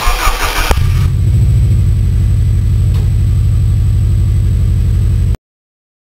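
Car engine sound effect: a short noisy start, then the engine idling with a steady rapid pulse, cut off abruptly about five seconds in.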